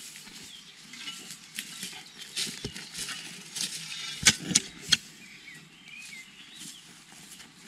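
Short entrenching shovel digging into dry, sandy soil: irregular scraping and crunching of the blade and loose earth, with three sharp chops of the blade into the ground a little past the middle, then quieter scraping as soil is scooped out by hand.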